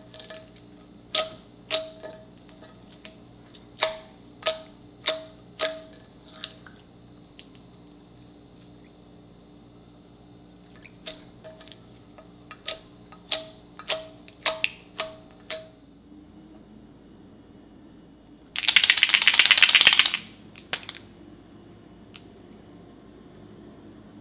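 Ultra clear slime clicking and popping as fingertips press into it, about two sharp pops a second in two runs. Later a loud rattle of under two seconds.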